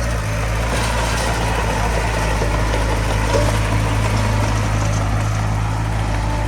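Diesel engine of heavy earthmoving equipment running steadily, an even low drone with no change in speed.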